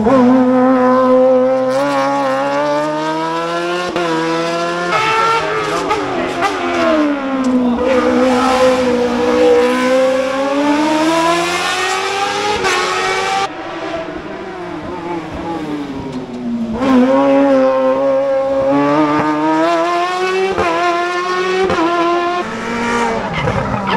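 Rally car engine racing on a hill-climb stage, its pitch sweeping up under hard acceleration and dropping back on lifting off and braking, several times over.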